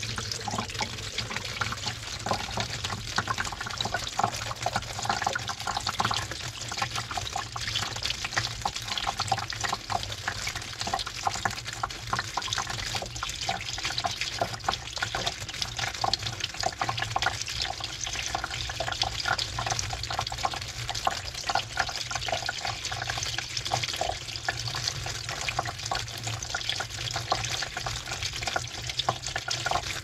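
Water running and splashing inside a washing machine drum, heard from inside the drum. A steady low hum runs under it.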